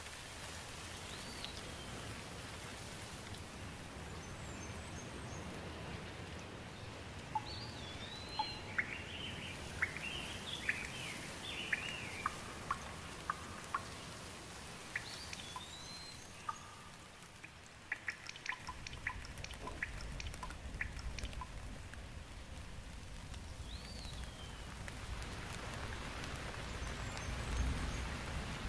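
Steady rain falling, with birds calling over it: a short hooked whistle repeated every several seconds and a burst of chirps in the middle. Scattered drops tick sharply through the second half.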